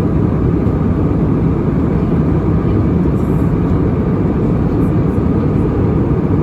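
Passenger jet airliner in flight during its climb-out: a steady, loud engine and airflow noise with no change.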